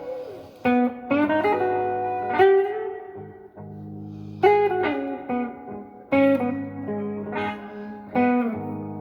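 Gibson SG Special electric guitar on its neck pickup, played through a Fender Blues Junior IV amp, picking a slow minor blues lead of single notes with string bends. Sustained low chords ring underneath.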